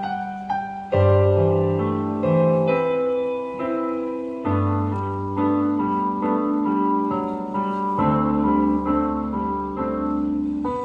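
Piano playing the introduction of a song in sustained chords over low bass notes, the chord changing every second or so, before the pan flute enters.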